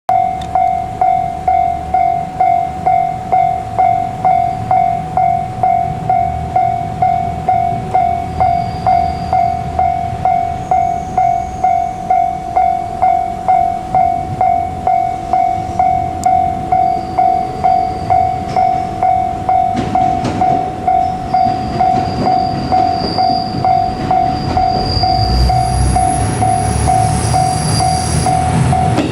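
Japanese level-crossing warning bell ringing steadily, about one and a half strikes a second. From about twenty seconds in, a KiHa 200 diesel railcar approaches, its engine and wheel rumble growing louder under the bell, with thin high squeals near the end.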